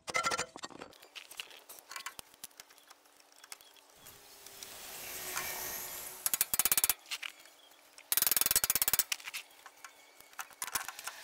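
Four short bursts of rapid metallic clattering as a center punch knocks the passenger CV axle's inner joint loose from the transmission and the axle is worked free. A rush of noise swells and fades in the middle.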